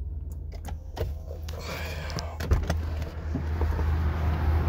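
Lexus LS460's V8 idling as a steady low hum. A few clicks are followed, about a second and a half in, by the driver's door being opened, after which more outside noise comes in.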